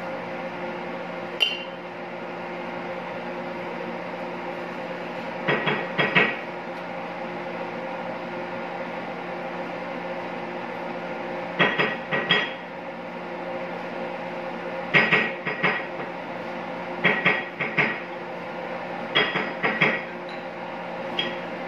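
Steady hum of a kitchen appliance, with short clusters of two or three sharp clinks of kitchenware every few seconds.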